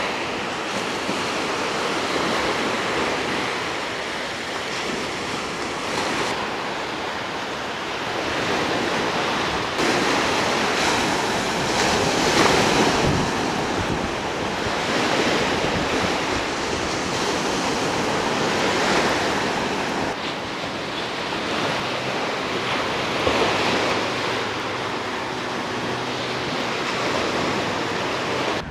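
Small surf breaking and washing up onto a sandy beach: a continuous rush of water that swells and eases every few seconds as each wave comes in.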